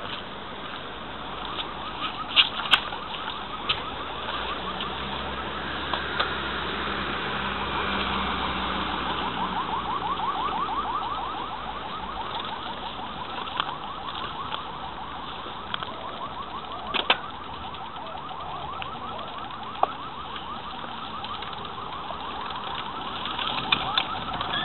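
Car alarm sounding a fast, evenly repeating rising chirp, loudest in the middle. Under it runs a steady low hum, with a few sharp knocks.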